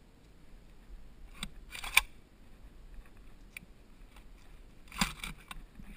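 Two short spells of clicking and rattling handling noise, from gear being worked by hand. The first comes about a second and a half in and ends in a sharp click near two seconds; the second comes about five seconds in.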